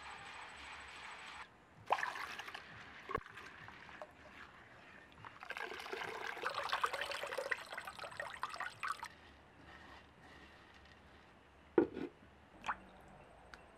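Hands stirring red lentils in a clay bowl. Then milky coconut milk is squeezed from grated coconut by hand and splashes and trickles into a clay pot for a few seconds. Near the end a clay lid is set down on a clay pot with one sharp knock and a lighter click.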